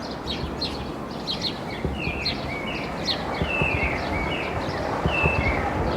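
Birds chirping: a run of short, high, falling calls about once or twice a second, over steady background noise.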